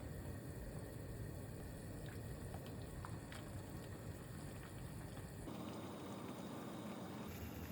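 Pot of yukgaejang (spicy beef soup) bubbling on the stove, a faint steady simmer with small scattered pops; the sound changes suddenly about five and a half seconds in.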